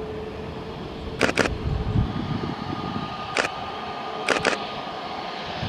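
Airbus A320neo airliner taxiing with its jet engines at idle: a steady low rumble with a faint whine. About five sharp clicks cut through it, two close together about a second in, one in the middle and two more close together near the end.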